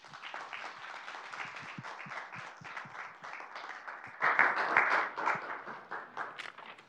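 Audience applauding, swelling louder about four seconds in and dying away near the end.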